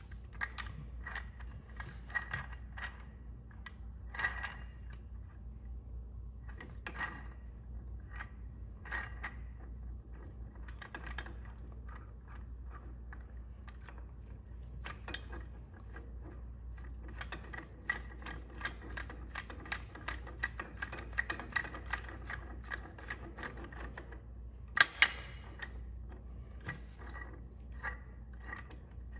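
Posi Lock Model 108 manual gear three-jaw puller being set up by hand, its T-handle spun to close the jaws: a long run of irregular small metallic clicks and ticks from the gear mechanism and jaws. One sharper metal clank near the end.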